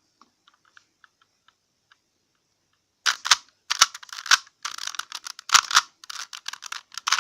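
Plastic Rubik's Cube being turned fast during a speed-solve: a few faint clicks, then from about three seconds in a dense run of rapid clacking from the layers snapping round, lasting about four seconds.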